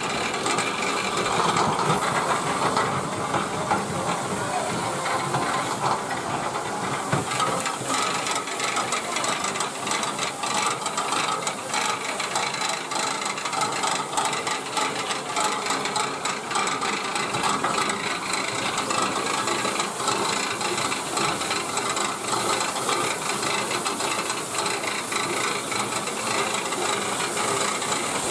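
Off-road vehicle driving over a rough track, heard as a continuous rushing noise with constant rattling.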